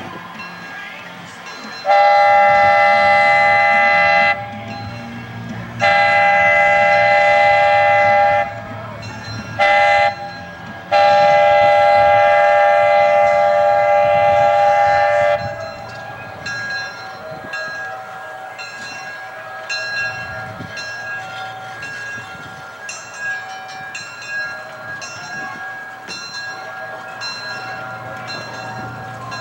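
Locomotive whistle of the 0-4-0 Tracy Lynn #19, a chord of several tones sounded long, long, short, long: the grade-crossing signal. Afterwards a bell rings repeatedly over the train's low running sound.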